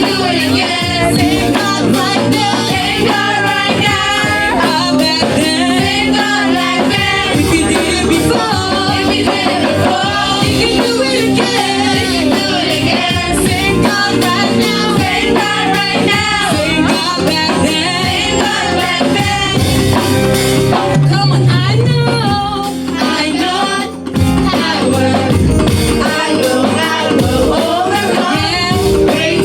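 Worship song: voices singing over a band accompaniment, with a brief break about three-quarters of the way through.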